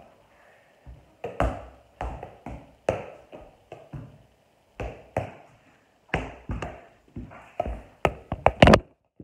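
Soccer ball being juggled: a run of dull thuds as it is kicked up off the feet and knees, roughly two a second with short gaps. Near the end come a few sharper, louder knocks.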